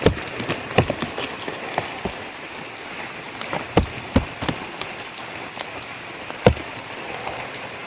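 Heavy tropical-storm rain falling steadily, with sharp, irregular taps of drops striking close by.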